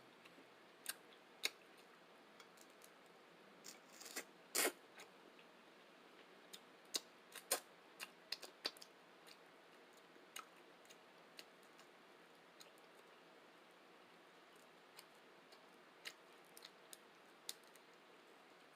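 Close-up eating sounds: scattered sharp mouth clicks and smacks from chewing, over a quiet background, with the loudest cluster about four to five seconds in.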